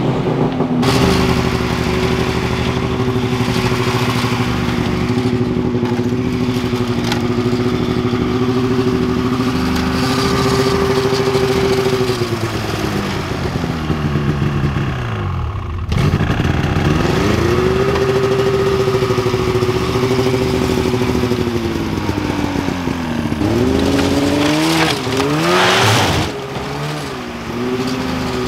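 Two-stroke snowmobile engine running at a steady fast idle, its pitch sagging and dropping away about twelve seconds in. After a sudden break, a sled engine climbs back up and holds, then dips and gives a short sharp rev near the end before settling back.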